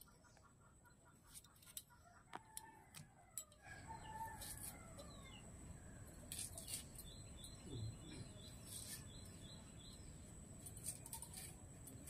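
A rooster crows about two seconds in, among other chicken calls, over soft scattered clicks of potato and onion being cut on upright fixed blades.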